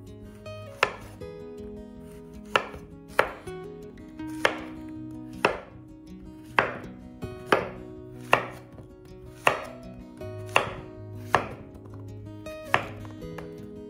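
Chef's knife slicing courgettes into rounds on a wooden cutting board: a sharp knock of the blade striking the board with each cut, about a dozen cuts at roughly one a second.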